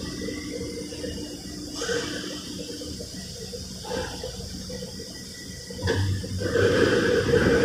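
Metal-workshop machinery running: a steady rushing hiss with a faint hum, swelling briefly about two and four seconds in and growing louder from about six seconds in.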